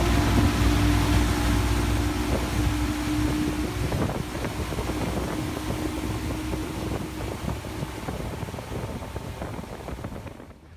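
Motorboat engine running with wind buffeting the microphone; the engine's steady tone fades after about two to three seconds, leaving wind and water noise that slowly grows quieter.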